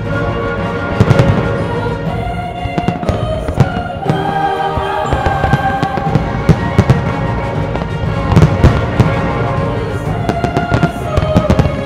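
Large aerial firework shells bursting in a string of sharp bangs, irregularly spaced, over loud music with held notes.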